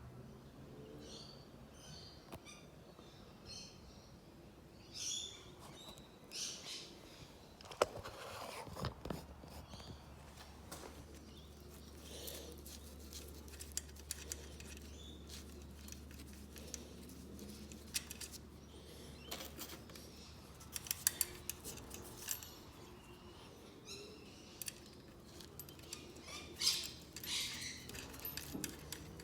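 Scattered light metallic clinks and taps of hand tools on car steering parts, with small birds chirping in the background and a low steady hum.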